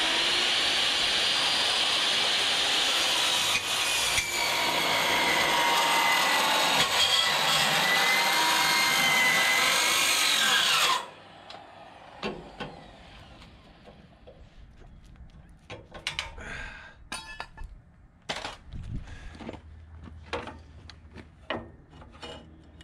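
Metal-cutting circular saw cutting through a steel truck frame rail: a loud cut with a whining blade tone that sags and recovers under load, stopping abruptly about eleven seconds in. After that come quieter scattered clanks and knocks of metal and the saw being handled.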